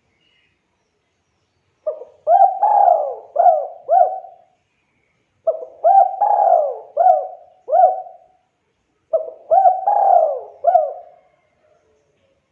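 Spotted dove cooing: three repeated song phrases, each a run of about five coos, about three and a half seconds apart.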